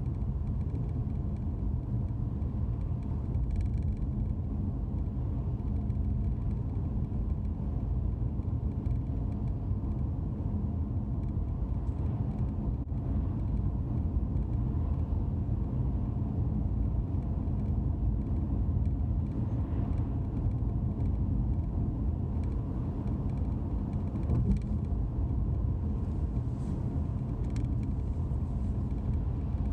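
Steady low road and engine rumble of a car driving at a constant speed, heard from inside its cabin.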